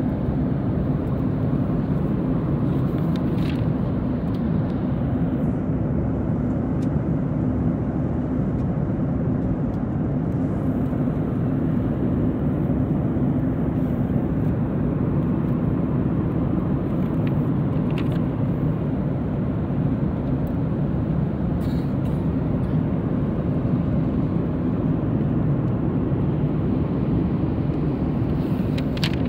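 Steady cabin noise inside a Boeing 737-8 MAX airliner: an even low rumble of engines and rushing air with a faint hum, and a few faint ticks.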